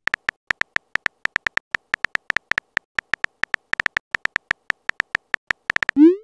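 Texting-app keyboard sound effect: rapid short electronic beeps at one pitch, one for each typed letter, about seven a second at an uneven pace. Near the end a rising swoop sounds as the message is sent.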